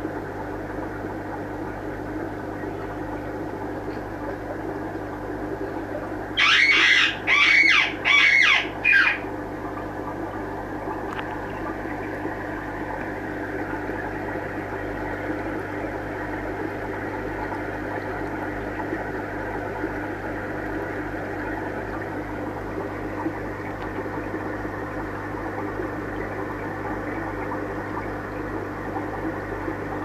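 A parrot squawks four times in quick succession about six seconds in, harsh loud calls each about half a second long. The rest is a steady low hum.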